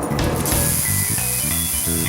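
Background music with a steady beat, and a high hiss from about half a second in.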